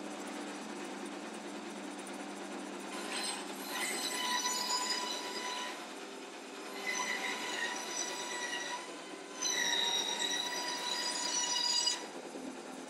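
Band saw running, then cutting through a thick oak tabletop in three stretches of a couple of seconds each, the blade giving a high whine while it is in the wood.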